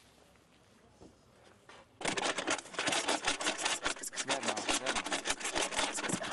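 About two seconds in, a narcotics detection dog starts sniffing hard close by as it searches for a drug scent: a fast run of short hissing breaths, several a second.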